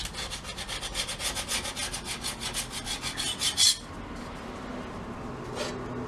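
A hand scraper scraping old finish and residue off a gumball machine's base, in rapid back-and-forth strokes several a second. The scraping stops with a louder last stroke about two-thirds of the way through, and one more brief scrape comes near the end.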